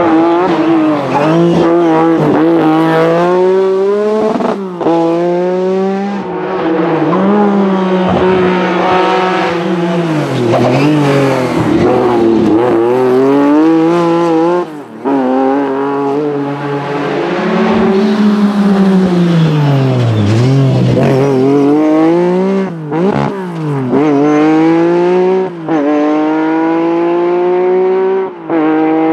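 Lancia Stratos rally car's V6 engine revved hard through the gears, its pitch climbing and falling again and again, with short breaks for gear changes and lifts off the throttle.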